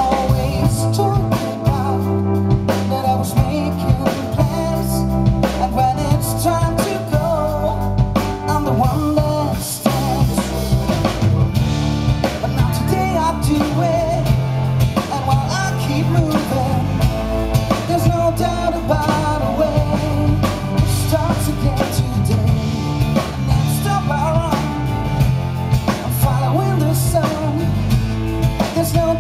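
Live pop-rock band playing a song: acoustic guitar, electric bass, keyboard and drum kit, with a male lead singer.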